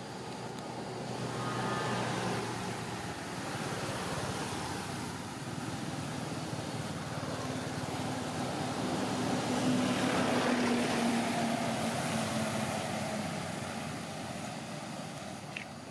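A motor engine humming steadily under a rushing noise that swells, peaks about two seconds in and again near the middle, then fades away.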